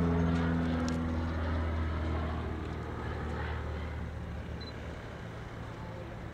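Small propeller-driven aerobatic plane's engine running, its pitched drone fading steadily as the plane dives away into the distance, leaving a low hum.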